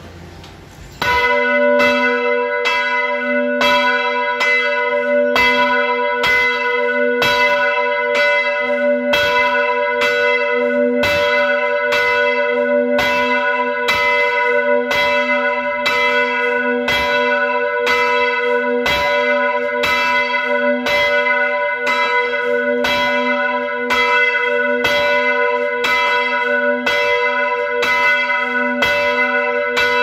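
Church tower bell swung by a hand-pulled rope, its clapper striking over and over in a steady rhythm, each stroke ringing on into the next. The ringing begins about a second in.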